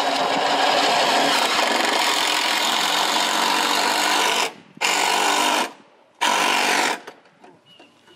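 Cordless drill driving a screw through an aluminum gutter: one long run of about four and a half seconds, then two short bursts as the screw seats.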